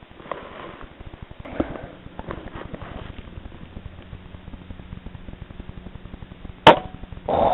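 A single rifle shot about two-thirds of the way in: one sharp, loud crack. A duller burst of noise follows just before the end. Earlier there are a few faint handling clicks over a steady low hum.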